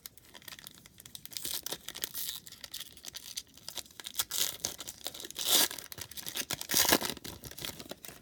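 A 2019 Donruss trading card pack's wrapper being torn open and crinkled: a run of crackling rustles with two louder rips in the second half.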